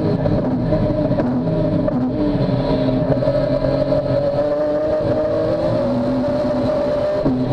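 Modified BMW S54 straight-six race engine heard from inside the car's cabin, running hard with its pitch dipping and rising as the car slows for a corner and accelerates out again.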